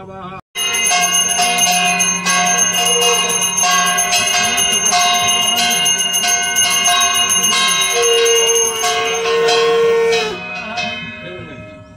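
Puja bells ringing continuously with rapid repeated strokes, starting abruptly about half a second in and dying away about ten seconds in. A steady held tone sounds over the bells for the last couple of seconds of the ringing.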